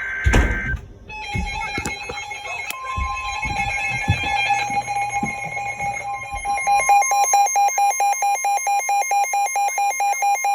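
Emergency alert attention tones: steady electronic alarm tones that come on about a second in, signalling an incoming severe thunderstorm warning. After about seven seconds the lower tone beeps rapidly, about three or four times a second. At the very start a door shuts with a thump, followed by a few faint knocks.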